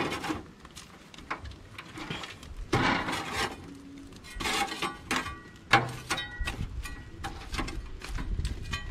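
Metal spatula scraping and clinking on the wire grate of a barrel grill as jerk chicken is lifted and moved, in a run of short scrapes and knocks.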